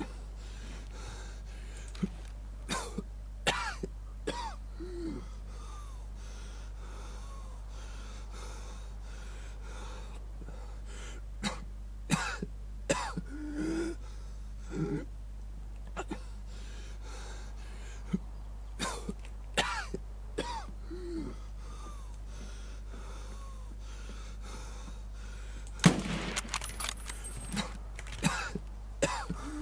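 A person coughing in short, sharp bursts, grouped in clusters of several coughs with pauses of a few seconds between them. The strongest cluster comes near the end.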